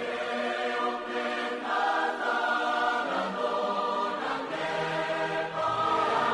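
Choral music: a choir singing long held chords that change every second or so.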